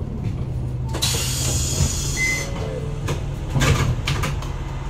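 Isuzu Erga Mio city bus (2KG-LR290J4) with its diesel engine running in a steady low hum. About a second in comes a sharp hiss of compressed air, lasting about a second and a half and cutting off suddenly, followed by a few light rattles.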